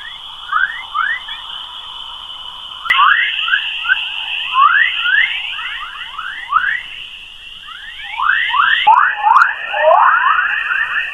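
Earth's magnetospheric radio 'chorus' waves, recorded by NASA and converted to sound: rapid rising chirps, a few a second, over a steady high hiss. The hiss changes tone abruptly twice, where recordings are joined.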